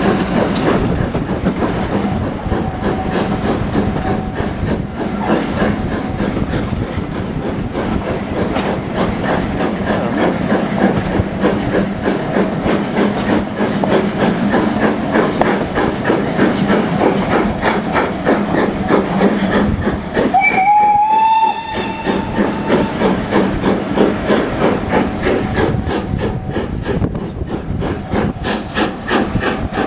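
Steam locomotive running with a steady, rapid rhythmic beat. About two-thirds of the way through it sounds its whistle once for about two seconds; the pitch rises quickly at the start and then holds.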